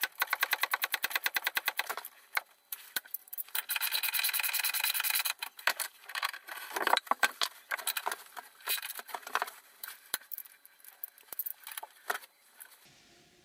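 Hand socket ratchet clicking fast and evenly, about ten clicks a second, as a bolt is turned under the car. It then gives a few seconds of continuous rasping, followed by slower, uneven ratchet clicks that stop shortly before the end.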